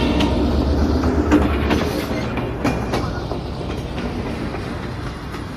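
Train sound effect: a train running on the rails with a steady rumble and the clickety-clack of wheels over rail joints, gradually growing fainter.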